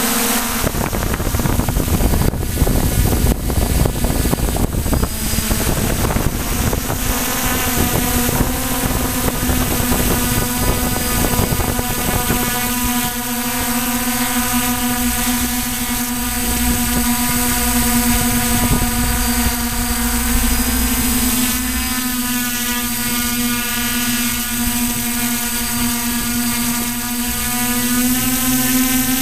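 Onboard sound of a DJI Flame Wheel multirotor's brushless motors and propellers: a loud, steady, pitched hum. For the first several seconds it is mixed with rough rushing air noise, then it settles into an even drone as the craft hovers low.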